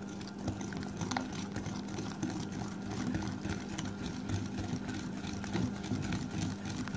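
Wire whisk beating eggs into creamed ghee and sugar in a glass bowl: quick, rhythmic scraping and clicking of the wires against the glass, over a steady low hum.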